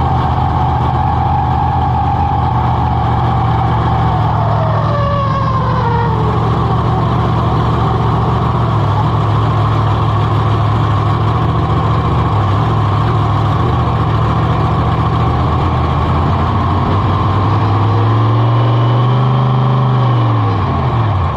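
Monster truck engine running loud: its revs wind down about five seconds in, it runs on at a steady low speed, and near the end it revs up once and drops back.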